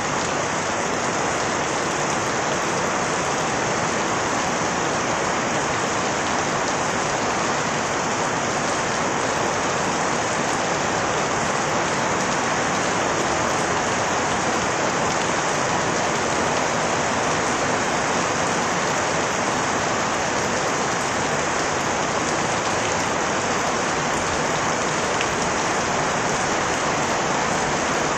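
Steady, even rain falling and pattering on surfaces.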